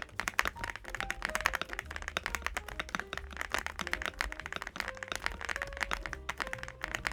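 Fast continuous typing on an MCHOSE UT98 mechanical keyboard, a quick run of many keystrokes a second.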